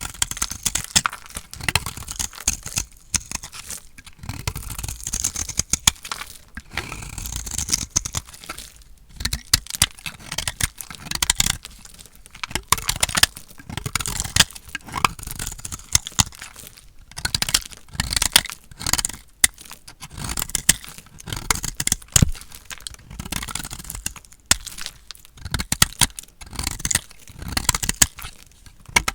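A knife cutting through dry bar soap: repeated crisp crunching and crackling strokes, with short pauses between cuts.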